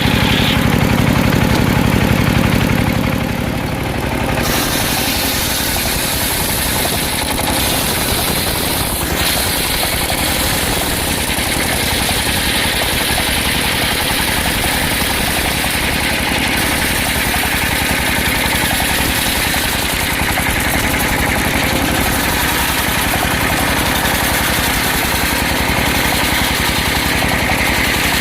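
Engine-driven circular sawmill running steadily, with a deeper low hum that drops away about four seconds in.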